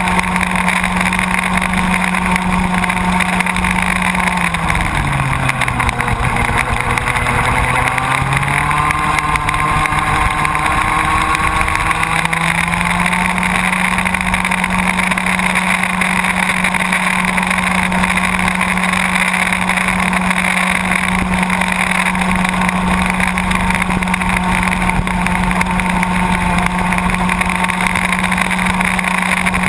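Baby ROK kart's two-stroke engine running at high revs on board, dropping in pitch about four seconds in as the throttle eases, staying low for a few seconds, then climbing back up and holding a steady high note for the rest of the lap.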